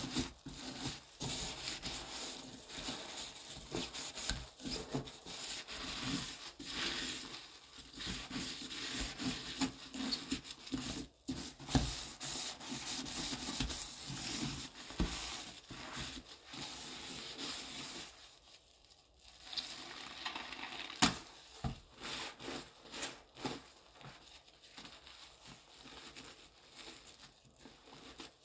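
A sponge scrubbing a sink basin coated in thick, foamy cleaning paste: continuous wet rubbing in irregular strokes. It eases off briefly about two-thirds of the way through, and a single sharp click follows soon after.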